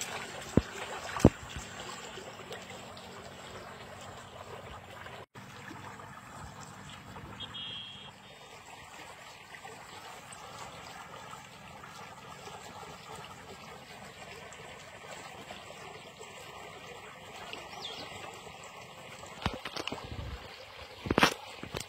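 Water rushing and churning steadily in a narrow grassy stream channel. A few sharp clicks stand out about a second in and again near the end.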